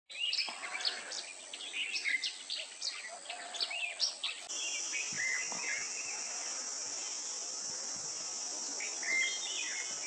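Small birds chirping, with many quick chirps in the first half and a few more later, over a steady high buzz of insects that grows louder about halfway through.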